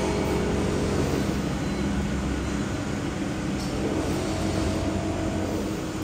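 Factory packaging machinery running with a steady mechanical hum and whir carrying several low steady tones; a deeper rumble under it drops away about two and a half seconds in.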